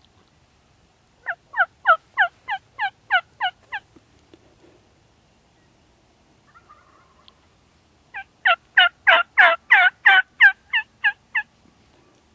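Two runs of loud turkey hen yelps, a short one early and a longer one past the middle. Each is a string of falling notes, about four a second: calling to draw in gobbling Merriam's toms.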